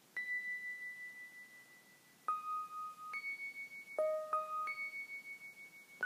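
Electronic notes from a Music of the Plants device, translating small changes in the electrical resistance of a piece of amber into pitches. One high note is held for about two seconds, then a run of shorter notes jumps between higher and lower pitches, each note wavering in loudness as it fades.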